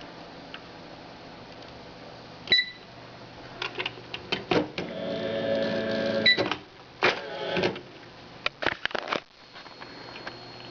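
Smith Corona Ultrasonic 350 Messenger electronic typewriter working: a short electronic beep, then quick clicks and a whirring mechanical run of about two seconds. It ends with a second beep, followed by another short run and a few more clicks, over the machine's steady hum.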